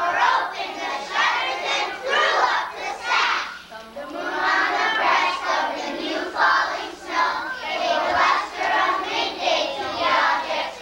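A group of schoolchildren singing together in unison, phrase after phrase with short breaths between.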